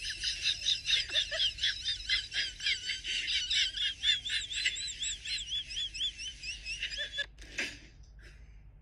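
Rapid high-pitched warbling chirps, about four or five a second, that stop abruptly about seven seconds in, followed by a single click.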